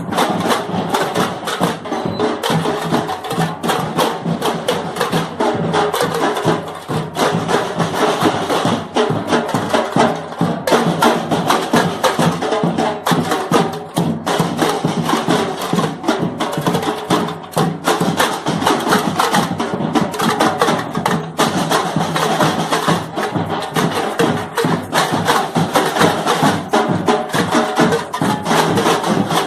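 Percussion ensemble playing a fast, dense rhythm of many drum strikes without a break.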